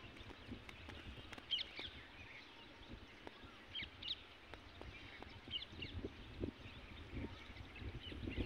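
Francolin (teetar) chick held in the hand, giving short, high cheeps every second or so, some in quick pairs, over faint rustles and knocks of handling.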